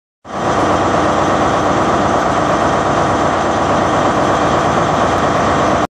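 Sound effect laid under an animated logo intro: a loud, steady rushing noise that starts suddenly and cuts off abruptly near the end.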